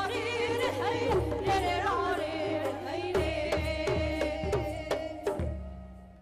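Pena, the Manipuri bowed spike fiddle, played with singing over regular percussion strokes. The piece ends on a final stroke about five and a half seconds in, and the sound then dies away.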